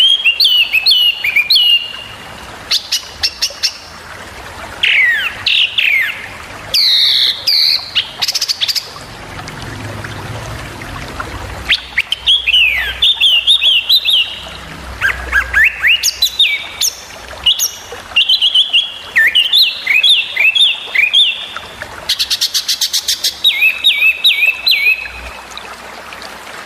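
Small songbird singing sharp, rapid chirping phrases: quick downward-slurred notes repeated in runs, with a fast rattling trill near the end.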